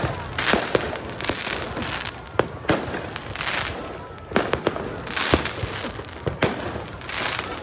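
Fireworks going off: many sharp bangs at irregular intervals, mixed with short crackling bursts every second or so.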